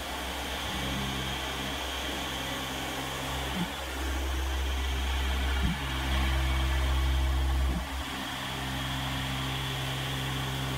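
Tormach 770 CNC mill running, its spindle and a flat end mill cutting a pocket in a metal block: a steady machine hum whose pitch steps up and down a few times as the cut moves.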